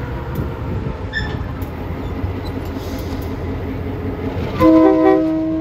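Diesel locomotive engine running with a steady low rumble. Near the end a loud, brief sound of several tones at once cuts in for about half a second, and its lowest tone lingers on more faintly.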